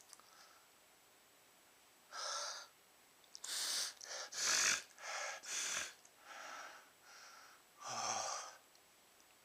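A man's series of about eight sharp, gasping breaths, loudest around the middle, as a sneeze from chhinkni sneezing powder builds but does not come.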